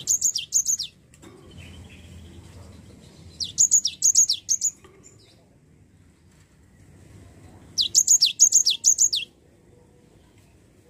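Cinereous tit singing: three short phrases about four seconds apart, each a rapid run of high, sharply falling notes lasting about a second.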